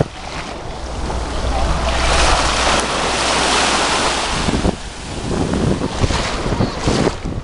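Small waves breaking and washing up the sand at the water's edge, with wind buffeting the microphone. One wash swells up about two seconds in and drops away near the five-second mark.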